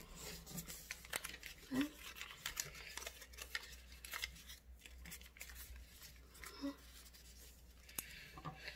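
A sheet of origami paper rustling and crinkling as it is folded and creased by hand: a run of small, irregular crackles.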